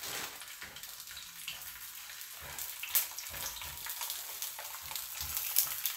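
Corn tortillas frying in hot pork lard in a skillet: a steady sizzle dotted with small crackles, and a sharper pop about halfway through and another near the end.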